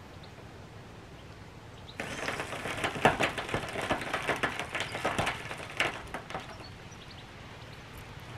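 Irregular clicking, knocking and scraping of hands-on work at a bottle jack under a steel shipping container's corner. It starts abruptly about two seconds in and eases off after about four seconds.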